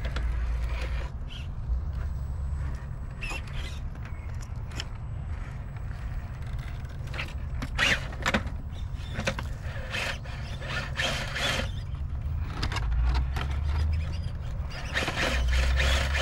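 Vanquish VS4-10 scale RC rock crawlers working over granite rock: small electric drivetrains whining and squeaking under load, with tires and chassis scraping and clicking against the rock. The activity comes in busier spells about halfway through and again near the end.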